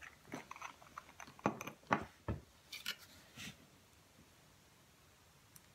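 Small clicks and knocks from opening and handling a glass nail polish bottle, about eight in the first three and a half seconds, one of them a duller knock just past two seconds.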